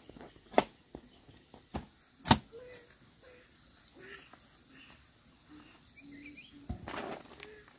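A hand tool chopping, a few sharp strikes with the loudest a little over two seconds in, then the strikes stop. Faint short calls follow, over a steady insect buzz.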